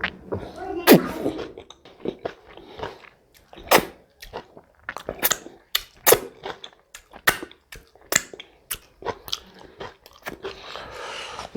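Close-up eating: chewing with sharp, irregular crunches and bites.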